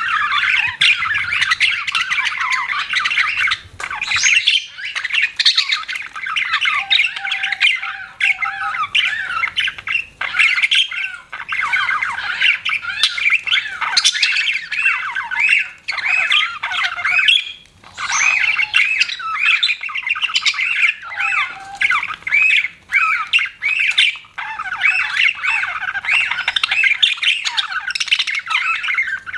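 Budgerigars (budgies) chattering and chirping almost without pause, a dense run of quick warbling calls with a few brief gaps.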